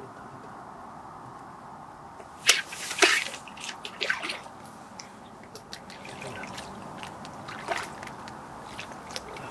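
A sharp snap about two and a half seconds in as the rod is struck, then irregular splashing of a hooked crucian carp thrashing at the water's surface, with another splash near the end.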